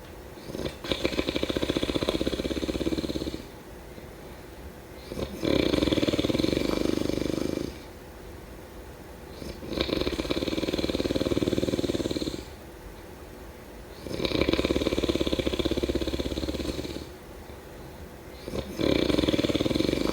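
A person snoring in a steady rhythm: five long snores, each lasting about two and a half seconds and coming every four to five seconds, with quieter pauses between.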